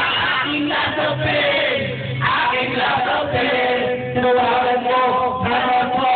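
A group of men singing together with held, sliding notes over backing music, one voice through a microphone.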